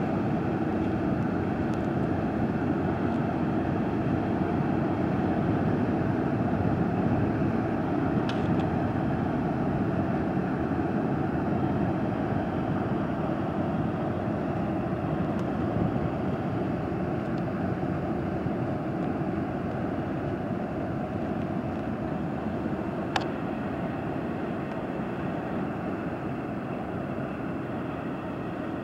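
Steady low drone of a passing inland barge's engine, easing slightly toward the end, with a faint click late on.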